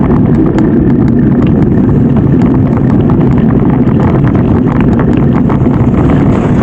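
Loud wind rumble on the microphone while riding along a rough narrow road, with frequent small clicks and rattles.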